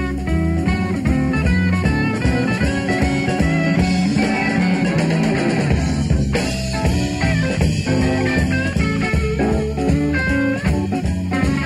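Blues-rock band playing an instrumental passage: electric lead guitar with some notes bent in pitch, over bass guitar and a drum kit.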